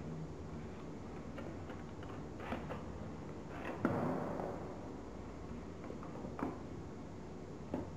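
Folded paper units of a modular origami ball crackling and rustling as hands press them into place: a few short crackles, with a louder rustle about four seconds in, over a steady low hum.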